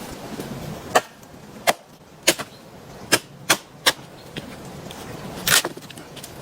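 A series of about seven sharp knocks at irregular spacing, the last one, near the end, longer and heavier than the rest.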